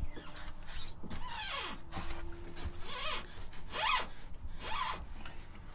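Plastic water-tank fitting being turned by hand on its thread, squeaking as it rubs: about five squeaks, roughly one a second, each sliding up and down in pitch, with a few faint knocks.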